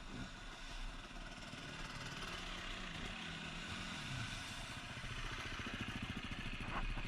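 Two-stroke trail motorcycle engine running at low revs. Its pitch dips and climbs again about three to four seconds in, then it settles into a steady, even pulsing.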